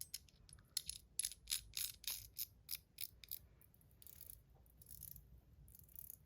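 Top C metal fidget clicker being clicked repeatedly, a run of sharp, high-pitched clicks about three or four a second, thinning to a few faint ticks after about three seconds.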